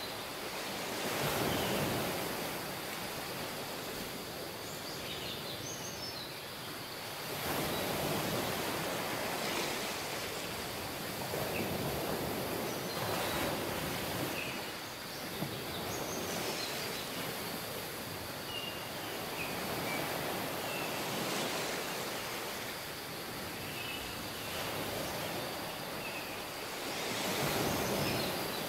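Ocean surf: waves washing onto a beach, swelling and easing every few seconds, with faint short high chirps scattered over it.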